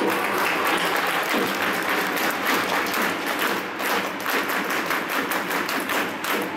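Football stadium crowd clapping steadily, many hands at once, with thuds mixed in.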